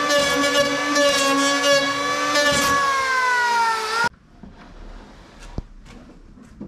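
Electric hand planer running with a steady high whine as it shaves the wooden rail of a hollow surfboard. Its pitch drops slightly and it cuts off suddenly about four seconds in, followed by a few faint taps.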